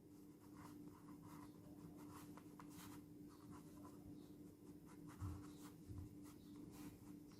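Faint scratching of a pen or marker writing, in short strokes, with two slightly firmer strokes near the end and a faint steady hum underneath.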